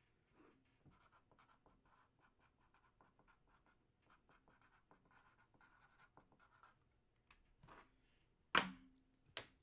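Faint, quick scratching strokes of a pen writing on paper, then two sharp knocks near the end, the first the louder.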